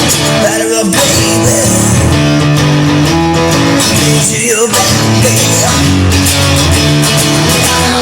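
Rock music: an instrumental guitar passage with held notes and a steady beat, loud throughout.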